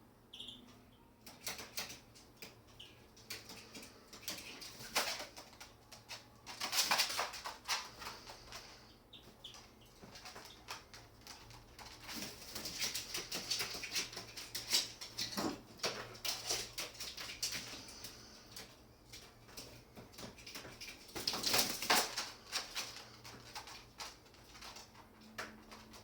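Birds moving about and flapping their wings, with many short clicks and taps; louder bursts of wing flapping about seven seconds in and again about twenty-one seconds in.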